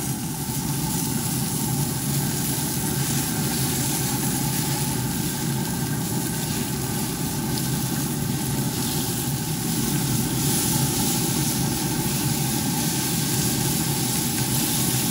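RecTeq 590 pellet smoker's fan running steadily on its highest heat setting: a continuous hum with a hiss.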